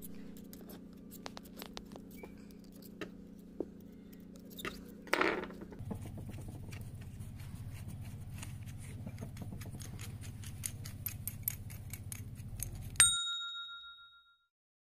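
Small metallic clicks and scrapes from a hand-turned pulley puller drawing a toothed pulley off a motor shaft, over a steady low hum. About thirteen seconds in comes a sharp metallic clink that rings briefly.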